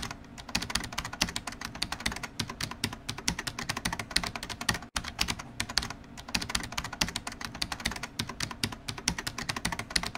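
Rapid keyboard-typing clicks, many keystrokes a second, with a brief break about five seconds in.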